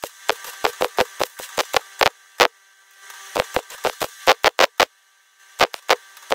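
MIG welder stitch-welding a steel repair section: a quick, irregular string of sharp pops over the welder's steady hum, pausing twice briefly.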